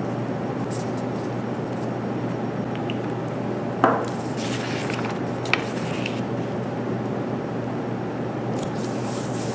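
Paper and glue-stick handling at a table. A glue stick rubs faintly on paper, and a sharp click of the glue stick comes about four seconds in, with a lighter click just after. Paper sheets rustle as the printout is moved and laid onto construction paper near the end. A steady hum of room noise runs underneath.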